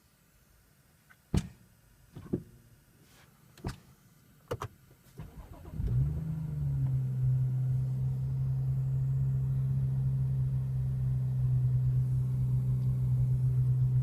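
A few sharp clicks, then a BMW M135i engine starting about six seconds in, flaring briefly and settling into a steady idle with a strong, steady low hum.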